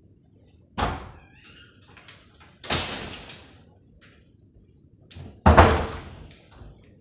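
A room door and other household thuds as someone comes in: three separate knocks, the last and loudest one near the end, sounding like a door being shut.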